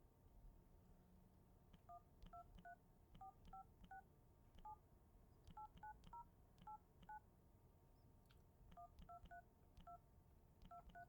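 Telephone keypad being dialed: short two-tone touch-tone beeps, each with a faint button click, in a quick run of about a dozen presses starting about two seconds in, then a pause and about six more presses near the end. Faint overall.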